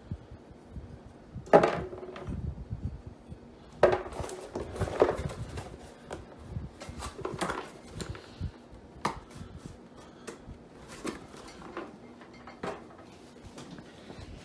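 A small enameled cast iron Dutch oven being handled as its plastic rim protectors are pulled off. Two louder clunks in the first four seconds, then lighter knocks and clicks.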